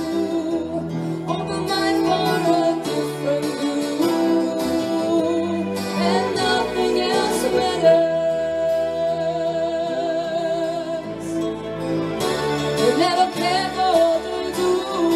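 Live band music: female voices singing a melody with long held notes over keyboard accompaniment, played through PA speakers.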